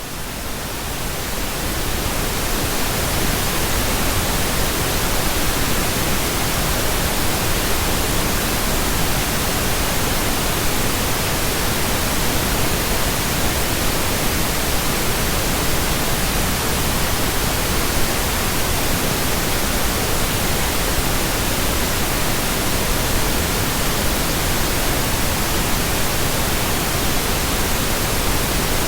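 Synthetic pink noise: a steady, even hiss with no tones or rhythm, fading up over the first couple of seconds.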